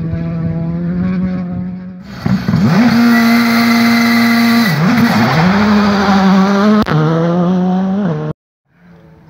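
Rally car engines in quick succession. A car runs at steady revs, then a much louder engine is held at high revs, dips briefly about halfway and climbs again, with a sharp crack a couple of seconds later. The sound cuts off abruptly near the end and a fainter engine follows.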